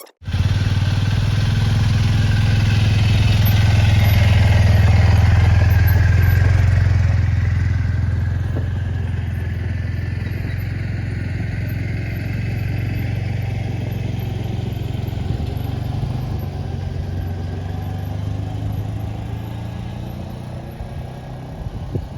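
Tracker 450 ATV engine running steadily. It is louder for the first seven seconds or so, then settles a little lower.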